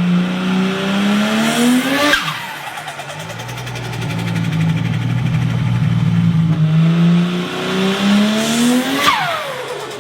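Turbocharged car engine revved up twice, its note rising each time. On each throttle lift a high whistle sweeps sharply down in pitch as the turbo flutters and spools down.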